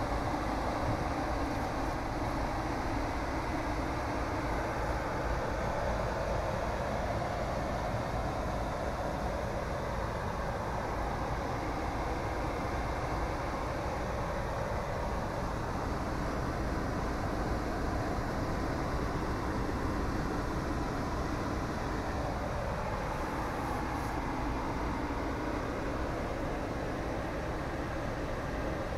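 Steady, even background noise with no distinct events, heaviest in the low range.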